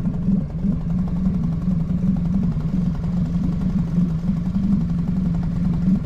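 Small outboard motor running steadily at low trolling speed, pushing an inflatable boat.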